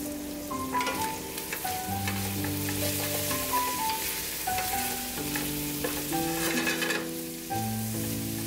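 Bacon and chopped ramps sizzling in a stainless steel skillet while a wooden spoon stirs them and scrapes the bottom of the pan in quick strokes. Soft background music of held notes plays underneath.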